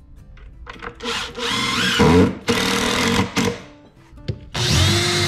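A handheld power tool working wood in four short bursts of one to two seconds each, the longest near the end, its motor pitch bending under load in the first burst.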